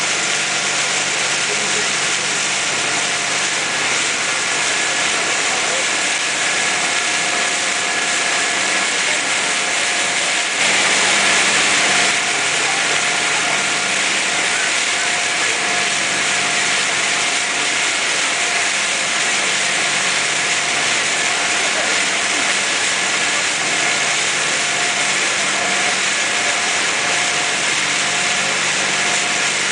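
A tour boat's engine running at a steady hum under way, heard from on board over a steady rushing noise. About eleven seconds in, the rushing swells louder for about a second.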